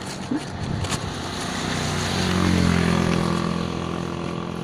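A motor vehicle's engine running and going by, growing louder to about three seconds in with its pitch rising, then easing off near the end.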